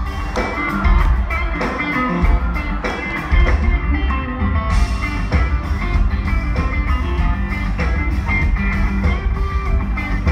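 Live rock band playing loudly on stage, electric guitar over a steady bass and drum beat.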